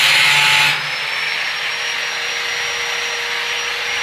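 Background music cuts out under a second in, giving way to a steady machine hiss with a faint high whine running underneath.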